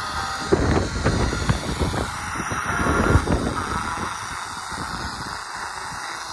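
Hiss of a portable XHDATA FM receiver tuned to a weak, distant FM station. Wind gusts buffet the microphone, heaviest in the first half.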